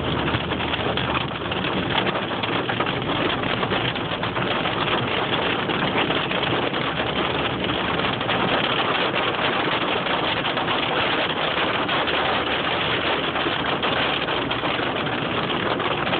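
Hail and rain pelting down in a dense, steady clatter of countless small hits, with a low steady hum underneath.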